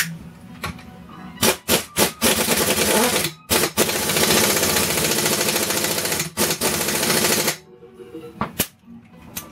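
Impact wrench hammering on the flywheel nut of a Kohler single-cylinder engine, running the nut down onto the crankshaft: a few short bursts, then a long rattling run with one brief pause, then a few short bursts near the end.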